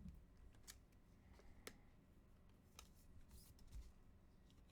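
Faint, sparse clicks and rustles of trading cards being handled and sorted, about one click a second, over near-silent room tone.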